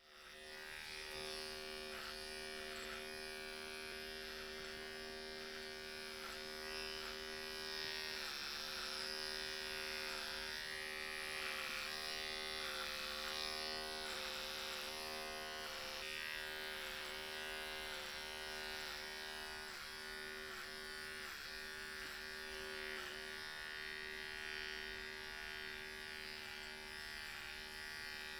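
Electric beard trimmer running with a steady buzz, the level wavering in small regular dips about every second.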